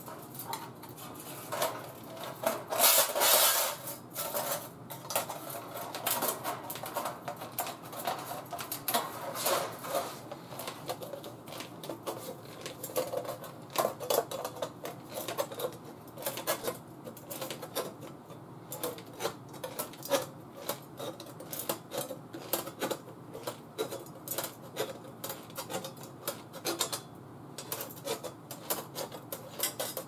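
Aviation tin snips cutting thin sheet steel: an irregular run of short, sharp metallic snips and crunches, with the loose sheet clinking as it is handled. The cutting is loudest and densest a few seconds in.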